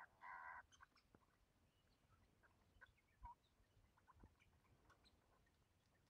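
Australian king parrot calling: one short call right at the start, then only faint scattered chirps and small clicks.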